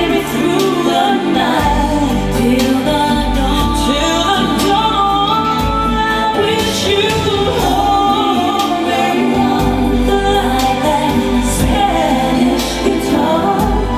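A song with singing played loud through a pair of home-built speaker cabinets fitted with Ciare PW 256 woofers and Sica 9470 bullet tweeters, as a sound quality test of the drivers.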